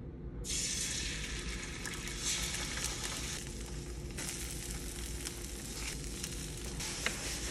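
Eggs frying on an electric hot plate griddle: a loud sizzle starts about half a second in as the eggs hit the hot surface and keeps going. A few light spatula scrapes come near the end as the eggs are lifted and turned.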